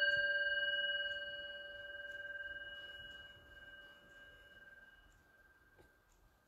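Handheld singing bowl ringing out with a clear tone and a few overtones, fading slowly until it is barely heard near the end.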